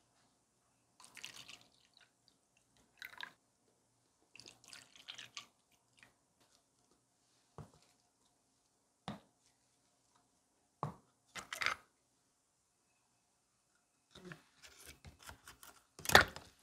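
Liquid poured into thin plastic cups in several short pours, with a few light taps of plastic on the work surface between them. Near the end come small clicks and a sharp clack as the metal coil spring is handled into a plastic cup with needle-nose pliers.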